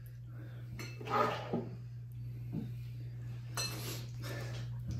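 Faint clinks and scrapes of a utensil in a bowl as someone scoops up a bite of noodles, a few separate small sounds over a steady low hum.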